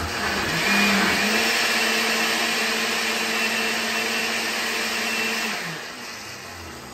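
Countertop blender running on a thick chile purée of anchos and pasillas in chicken stock. The motor spins up in the first second, runs steadily, and winds down about six seconds in.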